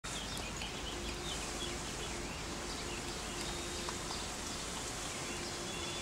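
Forest ambience: small birds chirping over a steady outdoor background hiss.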